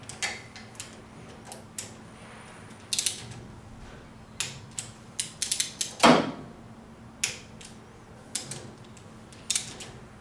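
Ratcheting torque wrench tightening nuts on a K-Series waterjet pump's seal head: irregular sharp metal ratchet clicks, with one louder click about six seconds in, the wrench clicking over at its set torque of about 20 foot-pounds.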